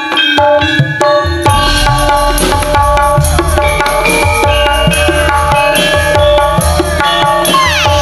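A Javanese gamelan ensemble plays: ringing bronze metallophone strokes, joined about a second and a half in by a driving drum pattern. Near the end a gliding, wavering singing voice comes in over the ensemble.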